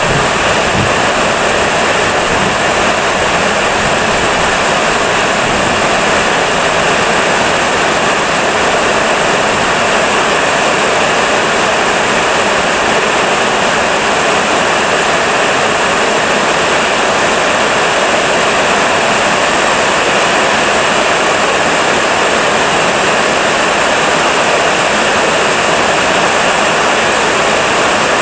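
Heavy rain falling steadily: a loud, even hiss with no breaks.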